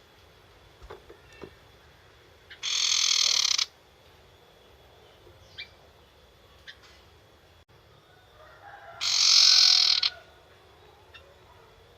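A young wild sirtu bird giving its harsh chattering 'nyetater' call twice, each burst about a second long and about six seconds apart, with a few faint short chirps and clicks in between.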